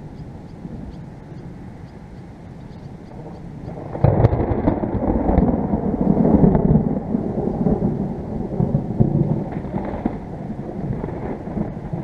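Thunder from a supercell thunderstorm: a low rumble, then a sharp crack about four seconds in that rolls into a long, loud rumble, easing off toward the end.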